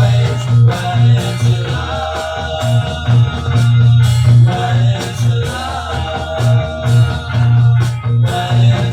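A 1960s pop record playing: a band with guitar, a pulsing bass line and a singing voice.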